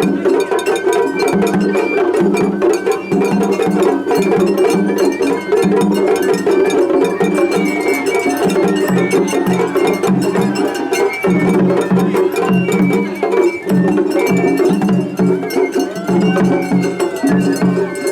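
Japanese festival float hayashi music played loud and continuous, with an insistent drum rhythm and clanging hand gongs over a high flute line. This is a seriai, where two floats' ensembles play against each other at once.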